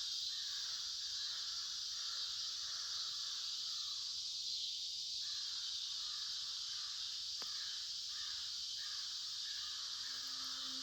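Crows cawing repeatedly over a steady high hiss of outdoor ambience, with one sharp click about seven seconds in. Faint background music begins near the end.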